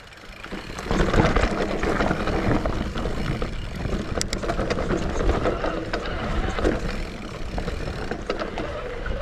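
Santa Cruz Heckler mountain bike riding fast down a dirt forest trail: a loud rushing noise of tyres and moving air, starting about a second in, with the bike rattling and knocking over the rough ground.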